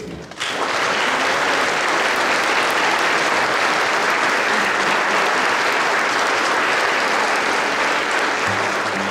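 A church congregation applauding, breaking out about half a second in and clapping steadily throughout. Music comes in under it near the end.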